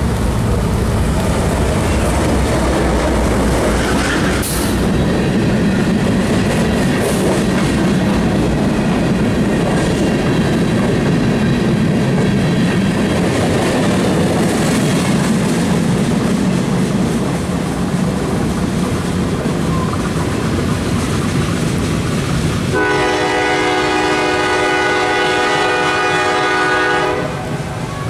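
CSX GE AC44CW diesel locomotive passing, then its loaded covered hopper cars rolling by on the rails. Near the end the locomotive's Nathan K5LA air horn sounds one steady blast of about four seconds, cut off sharply.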